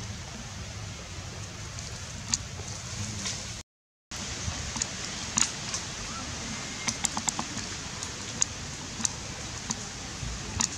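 Steady outdoor hiss, like rain or running water, with scattered sharp clicks and snaps, broken by a brief gap of total silence about a third of the way in.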